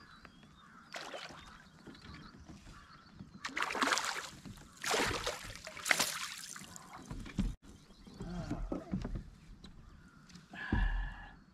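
Water splashing and sloshing in bursts as a hooked fish thrashes at the surface beside a kayak and is scooped into a landing net. The loudest splashes come about four to six seconds in.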